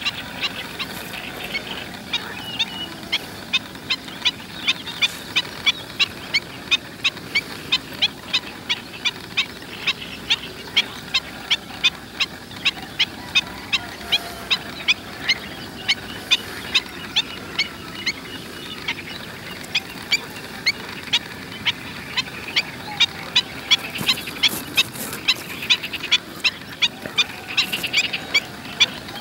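Pied avocet calls: a long, steady series of short, sharp, high calls, about two a second.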